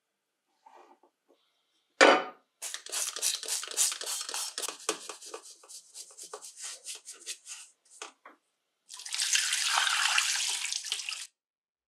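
A sharp knock about two seconds in, then a brush scrubbing a metal saw blade guard in a stainless steel sink in quick strokes, about four a second. Near the end, tap water runs steadily onto the guard for about two seconds and stops suddenly.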